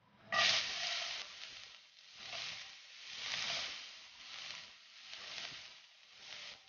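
Chopped garlic dropped into hot oil and butter in a stone-coated frying pan. It hisses loudest as it lands, then keeps sizzling, the sizzle swelling and fading about once a second.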